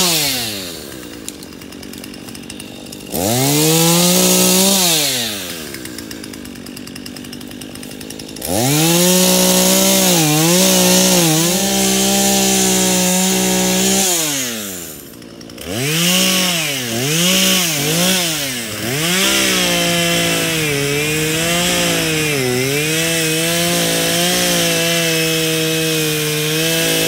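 Husqvarna two-stroke chainsaw, running on a lean 100:1 fuel-oil mix, cutting wood. It revs up to full throttle, its pitch sagging under load in the cut, and drops back to idle between cuts, with a few quick throttle blips about two-thirds of the way through.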